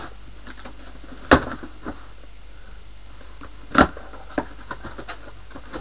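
Cardboard shipping box being opened by hand: scattered crackles and cracks of the cardboard and its tape. The two loudest sharp cracks come about a second and a half in and just before four seconds.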